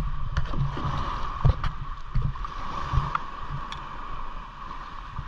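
Double kayak being paddled through shallow water: paddle strokes splashing and water sloshing against the plastic hull. Under it runs a low, uneven rumble with scattered small knocks.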